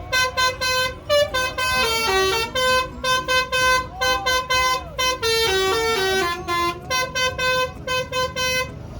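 Tour bus's basuri musical horn playing a fast melody of short toots, with a few passages that step down to lower notes; the tune stops just before the end.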